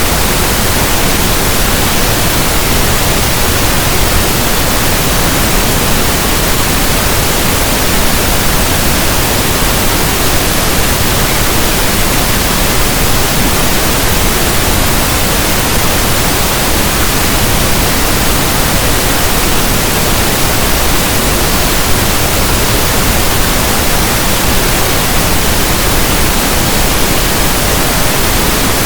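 Steady pink noise: an even, static-like hiss that does not change.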